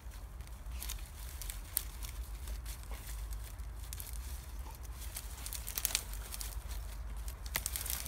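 Dry grass and dead twigs crackling and snapping as a dog roots and tugs through a brush pile, in irregular sharp crackles with a few louder snaps.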